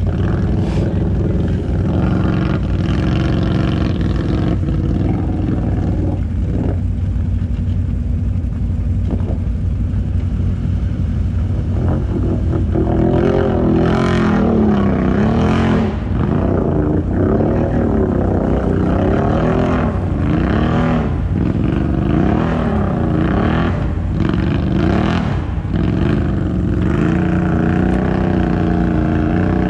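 ATV engines running: a steady low engine note throughout, and from about halfway through an ATV engine revving up and down again and again as the machine pushes through pond ice, with a few short crunches among the revs.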